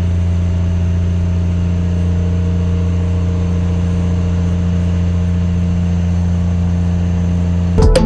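Fishing boat's engine running at a steady low hum, unchanging in pitch, cut off abruptly near the end.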